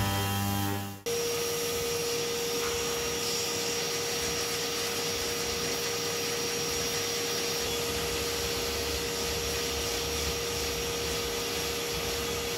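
Vacuum cleaner running steadily with a brush nozzle, a constant hum over a hiss of suction, cleaning dust off a freshly sanded carved wood panel. Background music plays for about the first second before the vacuum starts.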